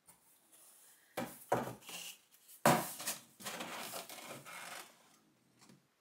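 A large cardboard box being handled and shifted: a few knocks and bumps, the loudest about two and a half seconds in, then cardboard rubbing and scraping for a couple of seconds.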